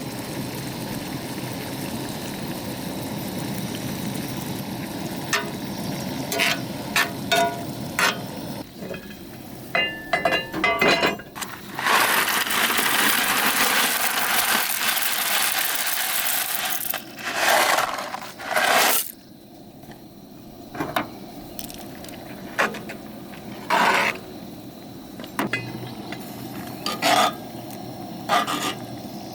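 Food sizzling in a pan, with metal utensils clinking and scraping against it. A louder stretch of hiss lasts about five seconds midway.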